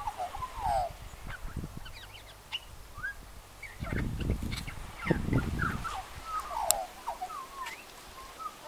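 Australian magpie singing: a run of quick, short gliding and warbling notes that goes on throughout. Low rumbles come in about four seconds in and again a second later.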